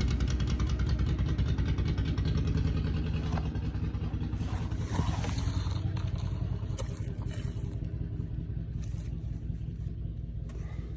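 Antique John Deere tractor engine running with an even firing beat as the tractor drives past on the road. It fades steadily as it moves away.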